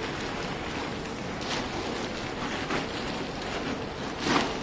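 Tent fabric rustling and crinkling as it is folded and smoothed by hand, with a louder rustle near the end.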